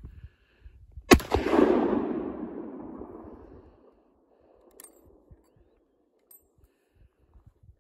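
A single gunshot from a Ruger No. 1 single-shot rifle firing a .458 Lott round: one sharp crack about a second in, then a long rolling echo that fades out over about three seconds. A few seconds later there is a faint metallic click as the rifle's action is handled.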